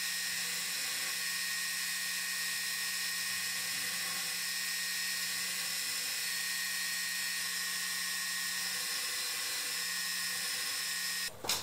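Belt grinder running with a steel knife blade pressed against the belt over a small-wheel attachment: a steady high whine over a grinding hiss as the wheel carves a scalloped, obsidian-like texture into the blade. The grinding stops abruptly near the end, followed by a knock.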